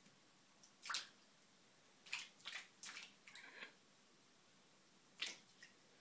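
A dog pawing at water in a sink, making short splashes and drips: one about a second in, a quick cluster of them from about two to three and a half seconds, and another near the end.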